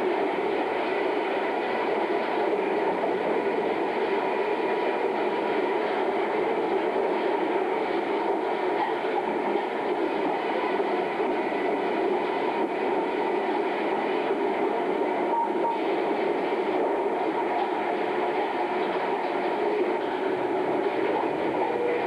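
Cambio 26-inch ring debarker running, its spiked feed rolls drawing logs through amid the sawmill's machinery: a loud, steady mechanical din with no distinct knocks.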